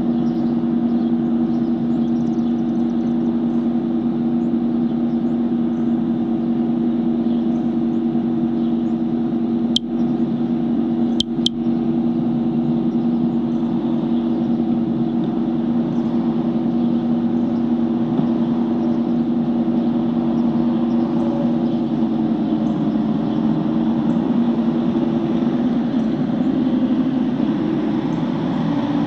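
A steady machine hum with two strong low held tones running unchanged, wavering slightly in pitch near the end. A few sharp clicks come about ten and eleven seconds in.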